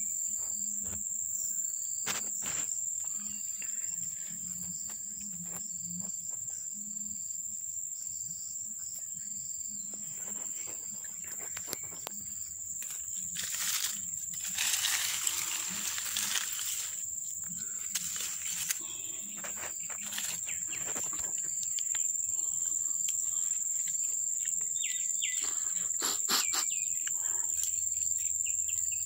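Steady high-pitched drone of insects, one unbroken tone, with scattered light clicks and a few seconds of rustling noise about halfway through.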